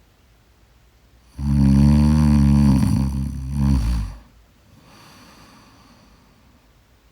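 A person snoring: one loud, deep, rattling snore lasting about three seconds, then a much softer breath.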